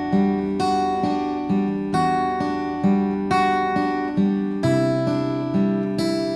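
Dolce TC-1 Rosewood acoustic guitar with a solid cedar top, played in a steady repeating chord pattern. A new chord sounds about every two-thirds of a second, and each one rings and decays before the next. The bass moves to a lower note about two-thirds of the way through.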